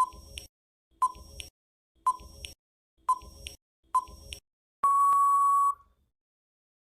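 Countdown timer sound effect: five short beeps about a second apart, then one longer steady beep about a second long marking the end of the count.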